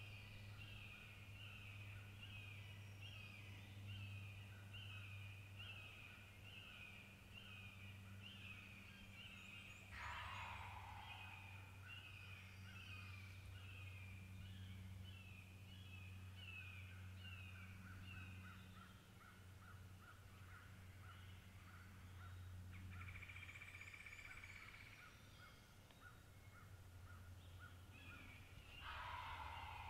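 A wild turkey gobbler gobbling in the distance, twice: once about a third of the way in and again near the end, each a rattling call about a second and a half long. Under it runs a steady string of high chirps, about two a second.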